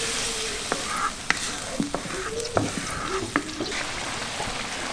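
Chopped onion and spice pastes sizzling in hot oil in a karahi while being stirred, the utensil knocking sharply against the pan about six times. The frying is the koshano stage, where onion and spices are braised down with a little water.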